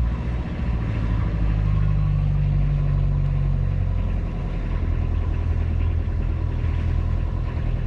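Beta Marine 35 inboard diesel engine freshly started and idling steadily, its note shifting slightly about four seconds in.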